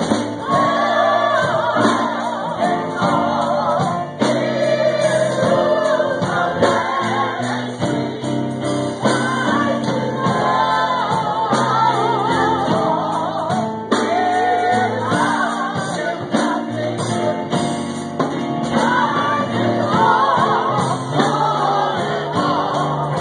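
Gospel choir singing, the voices rising and falling over steady low accompanying notes.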